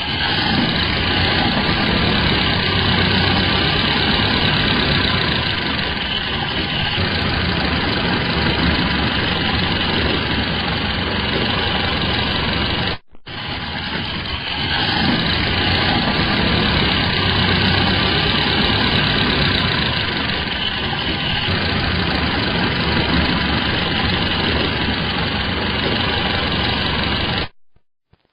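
Car engine running steadily at idle, heard in two separate recordings with a short silent cut about 13 seconds in. The second recording starts quieter and rises to full level a second or so later.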